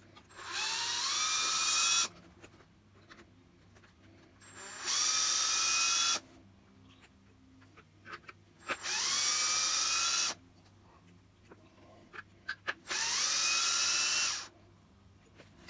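Ryobi cordless drill-driver spinning screws out of an RC truck's chassis plate in four short runs. Each run starts with a rising whine and then holds steady for about a second and a half, with small clicks of screws being handled in between.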